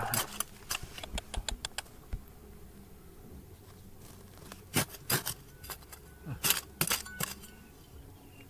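Hard objects clinking and knocking together: a quick run of light clicks in the first two seconds, then a few louder knocks about five and seven seconds in.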